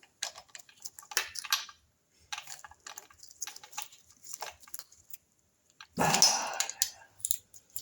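Small metal clicks and taps of a hand tool working at a tab washer, trying to bend up the locking tab on the oil pump drive pinion, then a louder clattering burst about six seconds in.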